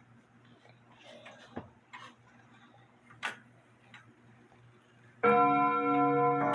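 Grandfather clock striking the hour: a few faint clicks, then about five seconds in a sudden loud, sustained ringing strike, with a second strike starting near the end. The strike train is running freely off its weight.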